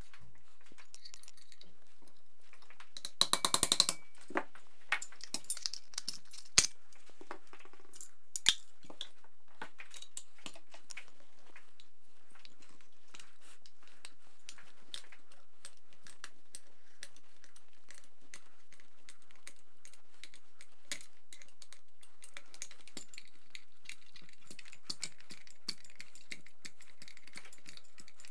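Metal parts of a Vityaz-SN submachine gun clicking and clinking as it is taken apart by hand and with a screwdriver. A quick rattle of sharp clicks comes about three seconds in, a few single loud clicks follow over the next few seconds, and then soft small ticks and scrapes go on.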